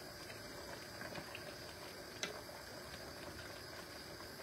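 Pot of soup simmering on the stove: a steady faint bubbling with small scattered pops, and one sharper click about two seconds in.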